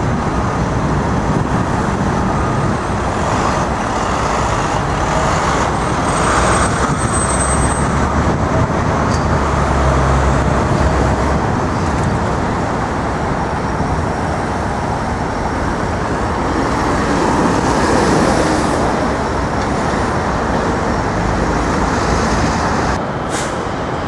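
Steady city street traffic noise, with a heavy vehicle passing in a low drone from about six to eleven seconds in.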